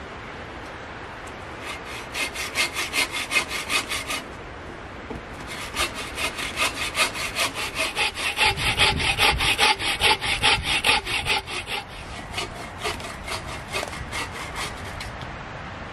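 Hand saw cutting through wood with quick, even back-and-forth strokes. It runs in two spells with a short pause about four seconds in, and the strokes turn lighter over the last few seconds.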